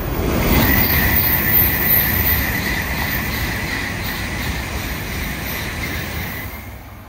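Shinkansen bullet train passing at speed: a rushing noise with a steady high whine. It is loudest in the first two seconds and fades away near the end.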